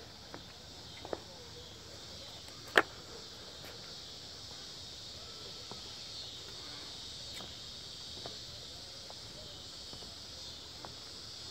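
Steady high-pitched chorus of insects, with scattered small clicks and one sharp click about three seconds in.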